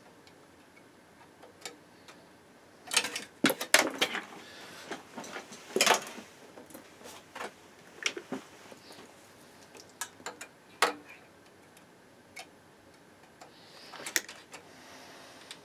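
Irregular small clicks and knocks of a screwdriver and multimeter test probes against a stereo receiver's metal chassis, with a burst of them about three to six seconds in and scattered single taps after.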